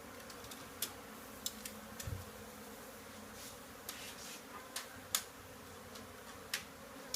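Mass of honey bees buzzing, a steady hum, with scattered sharp clicks and a low knock about two seconds in.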